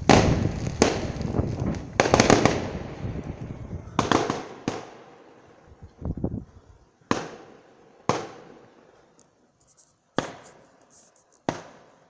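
Aerial fireworks exploding: a run of sharp bangs, each trailing off in an echo, with a burst of rapid crackling about two seconds in. The bangs then thin out to one every second or so.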